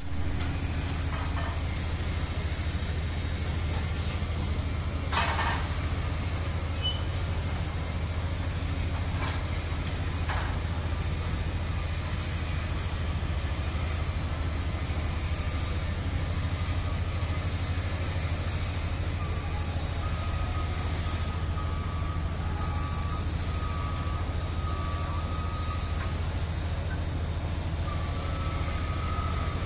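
Heavy machinery on a large construction site running steadily with a continuous low engine drone, a few short metallic clanks about five and ten seconds in, and a high beeping tone that comes and goes in the second half.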